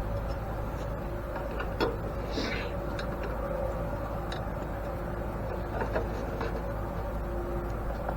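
Scattered light clicks and taps of hand tools on metal, the sharpest about two seconds in and again about six seconds in, over a steady background hum.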